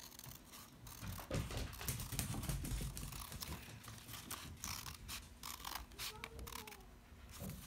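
Scissors cutting through thin paper, a run of short snips one after another as the cut follows a traced line.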